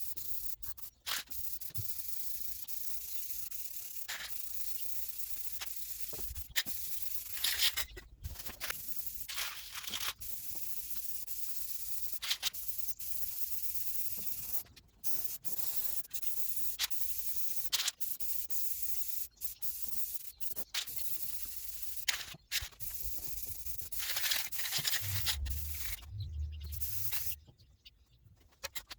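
Aerosol spray-paint can (Krylon) hissing in long steady passes with short breaks between them, stopping shortly before the end.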